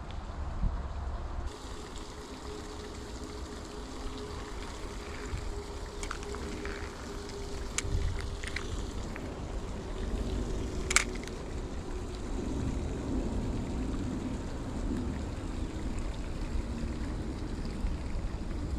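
Outdoor creek ambience: wind buffeting the microphone and flowing water, with a faint steady engine hum from a distant vehicle. Two sharp clicks stand out, about eight and eleven seconds in.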